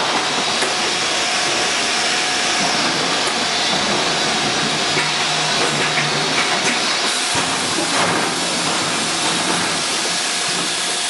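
Automatic four-head motor oil filling machine running, its pneumatic cylinders and nozzles giving a steady hiss with a few faint clicks.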